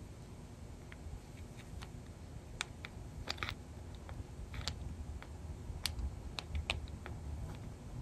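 Light, irregular clicks and ticks of small metal and plastic parts of a disassembled floppy drive mechanism being handled and picked at, over a faint low hum.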